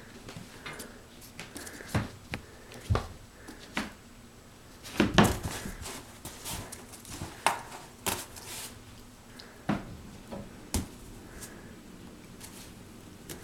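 Cats playing: irregular light knocks, taps and scrapes, with a quick run of them about five seconds in and another about eight seconds in.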